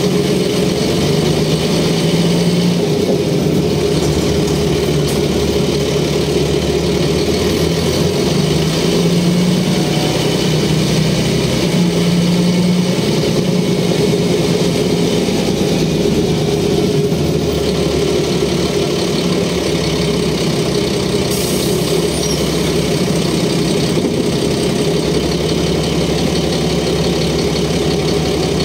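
The Mercedes OM447h six-cylinder diesel engine of a 1994 Mercedes O405N city bus, heard from inside the passenger cabin, running steadily while the bus is under way. Its low engine note swells and eases several times.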